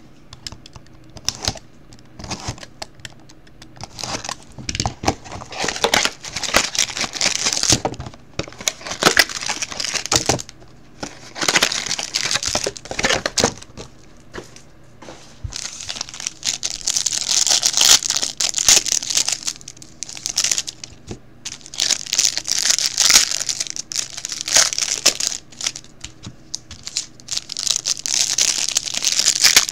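Plastic wrapping on trading-card packs crinkling and tearing as the packs are handled and opened by hand, in irregular bursts with short pauses between.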